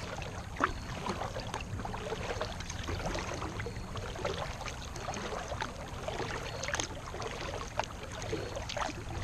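Kayak paddling: the paddle blades dip and splash with water dripping, and scattered light clicks and knocks come through the steady water noise.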